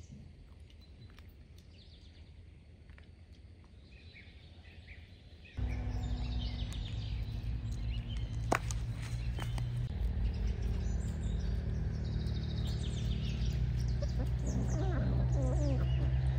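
Small birds chirping over faint outdoor ambience. About five and a half seconds in, a loud low hum starts suddenly and shifts in pitch about four seconds later, with the chirping carrying on above it.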